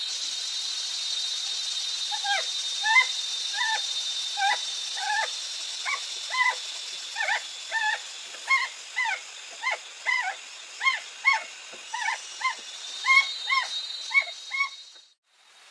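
An animal calling over and over in short, high, arching notes, about two a second, over a steady high-pitched drone of jungle insects. The sound cuts off suddenly near the end.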